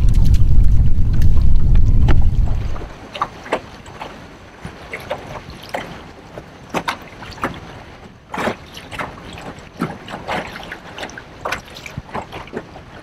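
Wind rumbling on the microphone of a moving jon boat, dropping away after about three seconds; then a quieter stretch of irregular light splashes and knocks of water around the boat.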